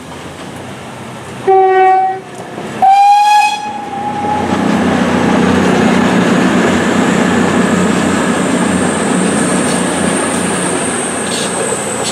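GWR 57xx pannier tank steam locomotive's whistle giving two short blasts, the second higher. The train then runs on with a steady rumble and clatter of wheels on rail.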